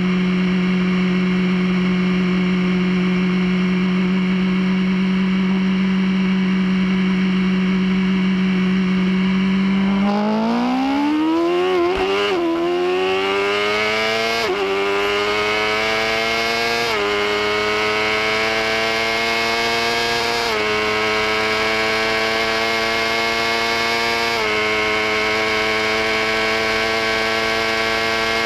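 Sportbike's inline-four engine, heard onboard: held at steady revs for about ten seconds, then run hard up through the gears, its pitch climbing with five upshifts, each a quick drop in pitch before it climbs again.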